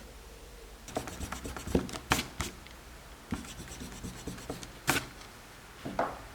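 5B Tombow MONO 100 graphite pencil drawing on thin printing paper: quick scratchy strokes in two runs after about a second, with a few sharper strokes among them.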